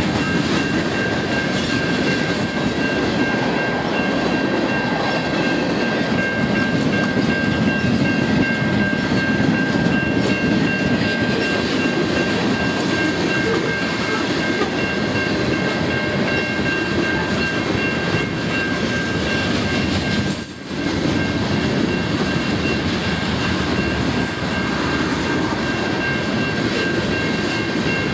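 Freight train cars (covered hoppers and tank cars) rolling past a grade crossing: a steady rumble of steel wheels on rail, with a steady high ringing tone over it and a brief drop in level about twenty seconds in.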